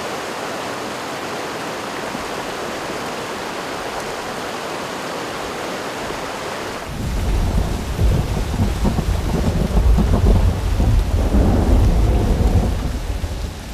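Rushing muddy floodwater: a steady, even rush for about seven seconds, then, from a sudden change, a louder torrent with a deep, uneven rumble.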